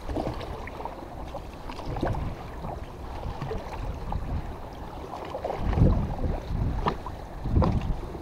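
Small wooden river boat underway: water washing along the hull and wind buffeting the microphone in a steady low rumble. Two louder low rumbles come about six and seven and a half seconds in.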